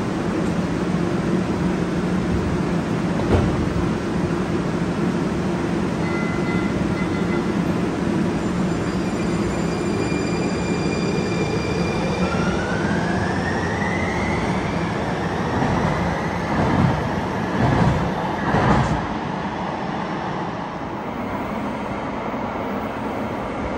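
TriMet MAX light-rail train in an underground station: a steady electrical hum while it stands, a short beep about six seconds in, then a rising electric motor whine as it pulls away, followed by a few thumps as it leaves. The sound then drops to a quieter steady station noise.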